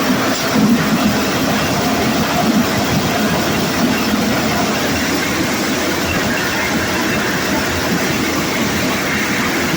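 Conveyor-fed corn sheller machine running, a loud, steady mechanical rattle and rush that keeps on without letting up.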